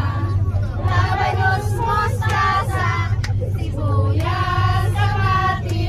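Female voices singing a melody with held notes, over the steady low drone of a bus engine.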